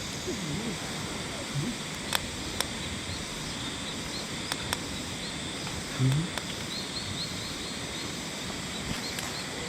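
Steady rushing of a river, with a few sharp clicks scattered through it and a short run of faint, high bird chirps about two-thirds of the way in.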